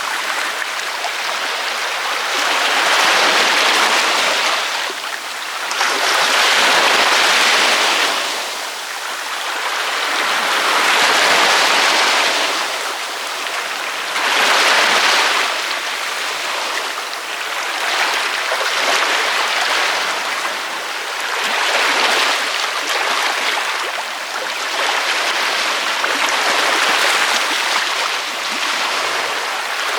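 Ocean waves breaking on a beach, a continuous rush of surf that swells and eases every few seconds as each wave comes in.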